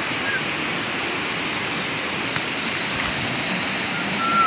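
Steady rushing of river water, with a faint high steady insect-like tone running through it. A few short, thin, high tones come just after the start and again near the end.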